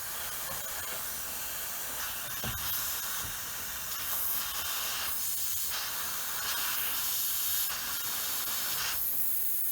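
Refrigerant (freon) hissing steadily out of a leak in a Carrier heat pump's outdoor coil, at a tube connection into the coil header. The hiss swells louder now and then.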